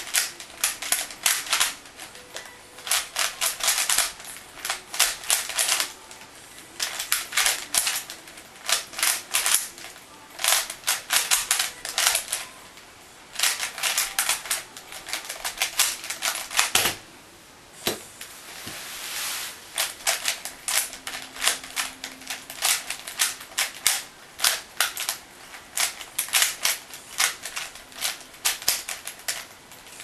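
Rapid clicking and clacking of a 3x3x3 Rubik's cube's layers turned in fast bursts with brief pauses during a speedsolve. A single louder knock comes just past the middle, as the solve ends and the timer stops. After that the turning goes on in more bursts of clicks.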